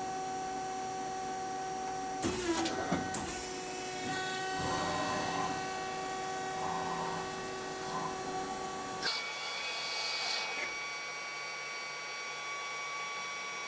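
CNC lathe running its program after cycle start, with its motors giving several steady whining tones and some uneven mechanical rattling. The sound changes abruptly about nine seconds in, followed by a short hiss about a second later.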